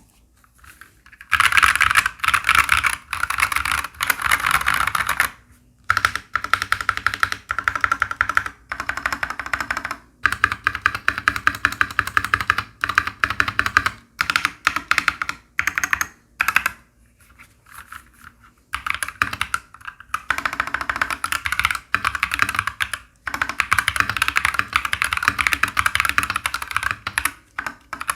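Mechanical keyboard typing sound test: fast keystrokes on MMD Panda tactile switches under thick PBT double-shot MDA-profile keycaps, with a loud, popping clack and no tape mod yet. The typing comes in bursts of a few seconds with short pauses between them.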